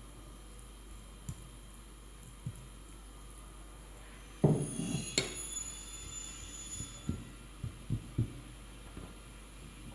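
Kitchenware being handled: a few soft knocks, then a clatter and a sharp clink about halfway through, the clink ringing on for a couple of seconds, followed by several more soft knocks.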